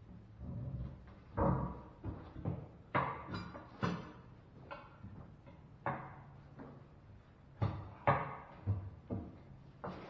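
Steel tire irons working a truck tire's bead over a steel wheel rim by hand: a string of irregular metallic clanks and thuds as the bars strike and lever against the rim and rubber.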